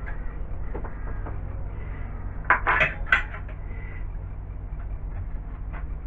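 A short cluster of sharp metallic clinks about two and a half seconds in, with a few faint ticks, from the steel magnetic-base dial indicator being handled against the aluminium base plate and linear rail. A steady low hum runs underneath.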